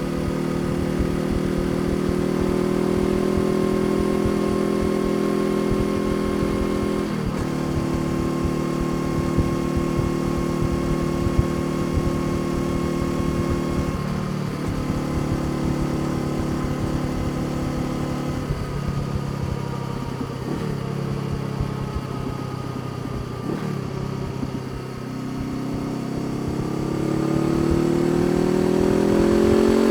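Honda CBR500R parallel-twin engine running under way, steady with four brief dips in revs as the throttle eases. About 26 seconds in, the revs climb steadily as the bike accelerates.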